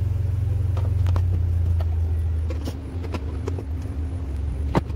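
Scattered plastic clicks and knocks from hands working inside the tub of an opened top-loading washing machine, a louder click near the end, over a low steady hum that dies away about three seconds in.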